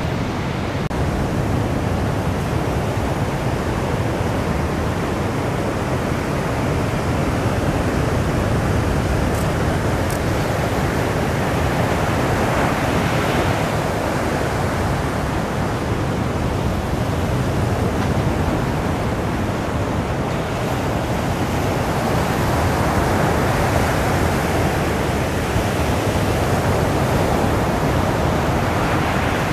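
Steady rushing of ocean surf, swelling a little around the middle and again near the end.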